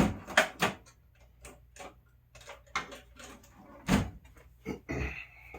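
A run of short, sharp clicks and handling knocks as an old zip tie is cut off a wakeboard strap buckle, with one louder knock about four seconds in.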